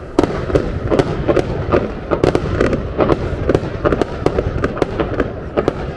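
Aerial fireworks display going off in a dense barrage: sharp bangs and crackles, several a second, over a continuous low rumble.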